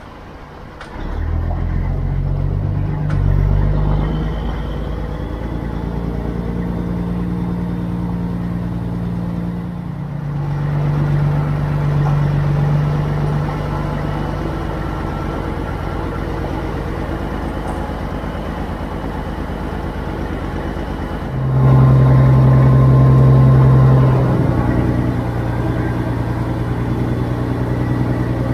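Semi truck's diesel engine running. It comes up sharply about a second in, then its pitch and loudness step up and down several times, with a louder stretch near the end before it settles back.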